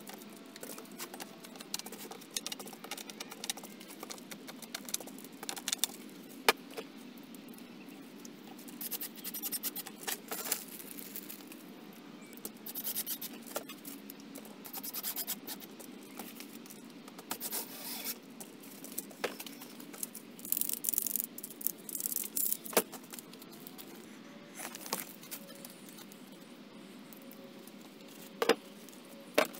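Scattered clicks, scrapes and rubs of a plastic waste pipe and its fittings being handled and worked on at a workbench, with short spells of scraping and single sharp knocks.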